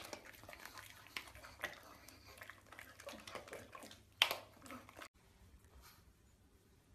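Faint irregular knocks and small splashes from a wet pug moving in a bathtub, with one louder knock about four seconds in. After that it drops to faint room tone.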